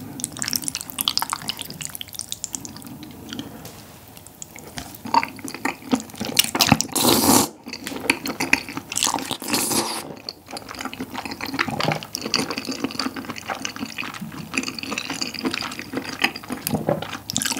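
Close-miked wet eating sounds of spicy tteokbokki and wide Chinese glass noodles: chopsticks stirring the thick sauce, a couple of loud slurps of sauce-soaked noodles midway, and sticky chewing with many small wet clicks.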